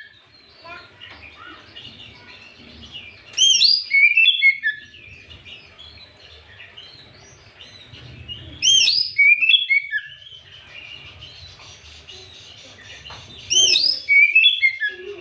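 Oriental magpie-robin (kacer) singing: three loud phrases of quick, sweeping whistled notes, about five seconds apart, with softer chirps and chatter in between.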